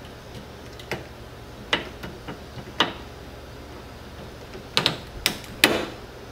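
Small metallic clicks of a U-joint bearing-cap retaining clip being worked into its groove in the half-shaft yoke with needle-nose pliers. A few scattered clicks, then a quick cluster of sharper clicks about five seconds in.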